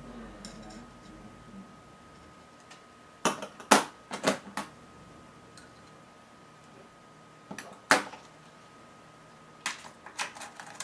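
Fingers picking at and lifting the thin plastic sheets behind a MacBook Air LCD panel: scattered sharp clicks and taps in small clusters, over a faint steady tone.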